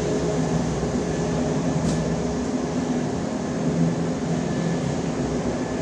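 Steady machinery hum with a few held low tones, with a faint click about two seconds in.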